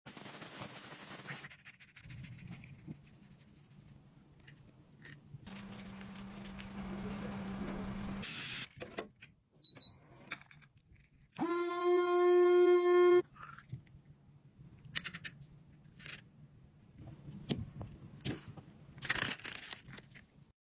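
Small clicks, taps and scraping handling noises from makeup products being worked on, with stretches of soft hiss. About halfway through, a loud steady pitched sound with a bleat-like quality lasts under two seconds.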